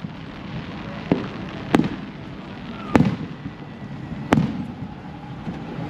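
Fireworks exploding: four sharp bangs within about three and a half seconds, each with a short low rumble after it.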